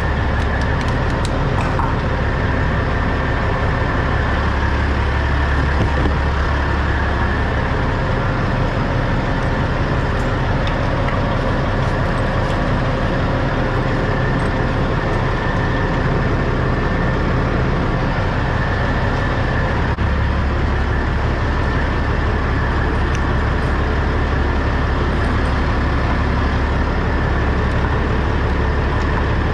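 Heavy diesel truck engine idling steadily, a deep even rumble with a steady high-pitched whine above it.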